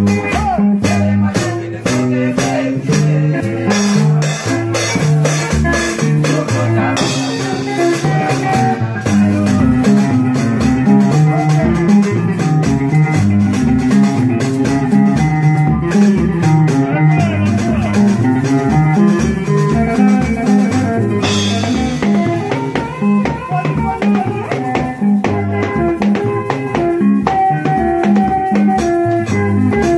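Congolese soukous band music: guitar lines over a drum kit with a steady beat and a shaker.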